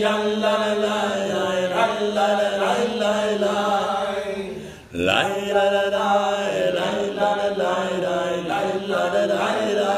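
A cantor chanting a prayer solo, one unaccompanied male voice in long sustained phrases with a wavering melody. There is a short break for breath just before the middle, then a new phrase.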